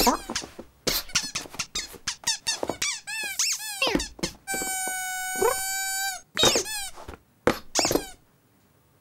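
Cartoon kitten vocal effects: a quick string of high, squeaky mews and chirps that slide up and down in pitch, with one long held squeal about halfway through and a few more squeaks that stop about a second before the end.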